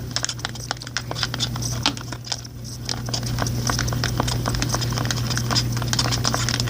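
Glue and shampoo slime mixture being stirred in a container: an irregular run of quick taps and clicks of the stirrer against the container, with soft sticky sounds of the mixture.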